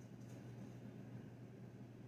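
Near silence: room tone with a faint steady low hum and hiss.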